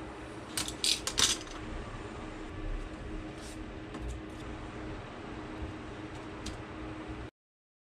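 Desk handling sounds: sheets of paper and a ruler handled on a wooden desk, with a quick cluster of sharp clicks and taps about a second in and a few fainter ones later, some of them keyboard keystrokes. A faint steady hum runs underneath, and the sound cuts off just before the end.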